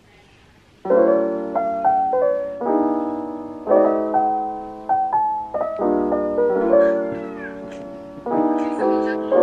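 Background music: soft piano chords, each struck and left to fade, starting about a second in.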